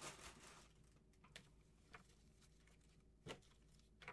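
Near silence with faint desk-handling noises: a brief soft rustle at the start, then a few light clicks and taps, the loudest about three seconds in.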